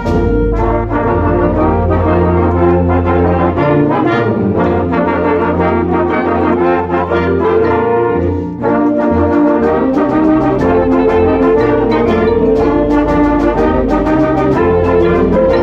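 A band playing loud music with the brass to the fore, with trombones and trumpets in many sustained notes. It breaks off briefly about eight and a half seconds in, then carries on.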